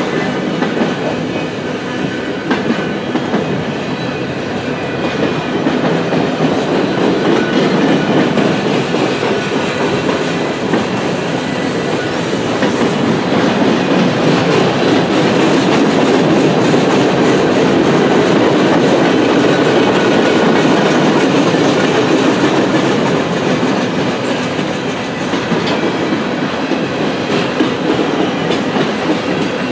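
Freight cars of a long mixed freight train rolling past close by: a steady rumble and rattle of steel wheels on the rails with scattered clacks, growing louder through the middle stretch and easing off near the end.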